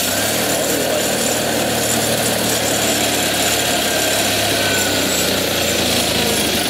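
Simplicity Sunstar garden tractor's 20 hp Kohler Magnum engine running steadily at part throttle as the tractor drives forward.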